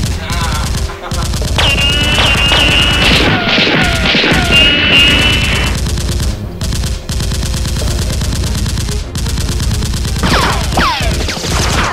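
Rapid, continuous automatic gunfire sound effects laid over the Nerf blasters: a dense, unbroken run of shots.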